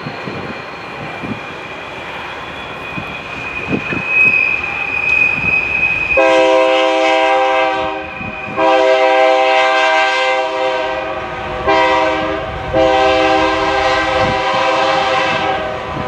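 Air horn of a BNSF freight diesel locomotive sounding four blasts: long, long, short, long. The horn comes in about six seconds in, over the running noise of the train.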